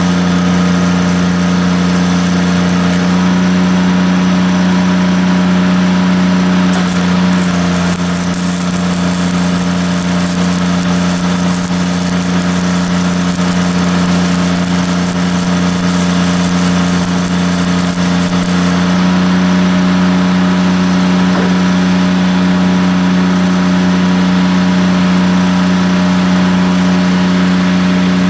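Engine of an engine-driven welder running at a steady speed, with the hiss and crackle of arc welding as tack welds are laid from about 7 to 19 seconds in.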